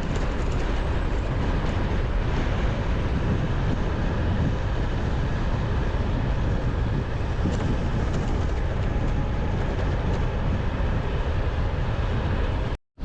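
Steady rush of wind and road noise from a vehicle travelling along a road, with no clear engine note. It cuts off abruptly near the end.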